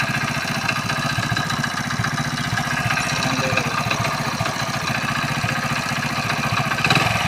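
Hero Splendor Plus motorcycle's single-cylinder air-cooled engine idling with a steady, even beat, making the abnormal noise its owner points out as an engine sound problem; the exact fault is not named.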